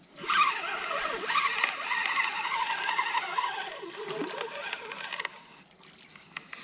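Fishing line whirring off a spinning reel's spool during a long cast, the pitch falling as the rig slows in flight, fading out about four seconds in as the rig lands in the water.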